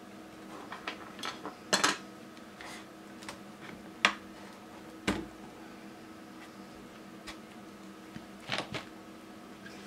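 Clicks and clattering knocks of a plastic HP 12A-type laser toner cartridge being handled and worked on with a screwdriver, a handful of sharp hits with the loudest about four seconds in. A faint steady hum runs underneath.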